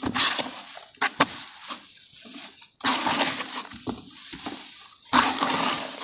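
Hands squeezing and mashing soaked red dirt: wet, crumbly squelching in three bursts, with a sharp crack about a second in.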